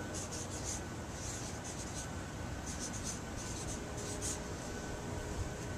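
Felt-tip marker writing on a paper poster board: about five quick runs of short, scratchy strokes, the last ending a little after four seconds in.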